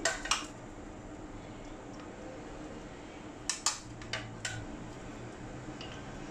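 A few short clicks and taps of a metal utensil against a ceramic bowl as shredded chicken filling is scooped out onto rolled dough, most of them bunched together a little past the middle.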